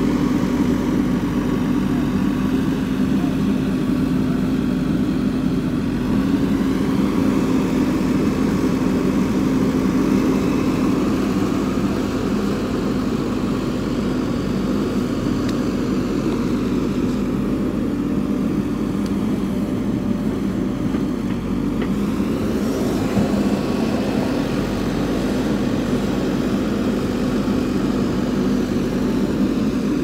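JCB backhoe loader's diesel engine running steadily under work, with small shifts in pitch as the throttle changes.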